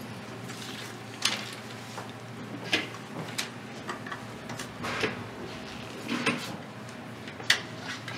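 Film reels and film strip being handled on a table: a series of sharp clicks and knocks, about six in eight seconds, the loudest near the end, over a low steady hum.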